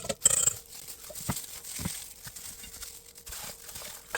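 Crinkling and handling noise from preparing pork chops in their marinade, loudest in the first half-second, followed by a few soft knocks.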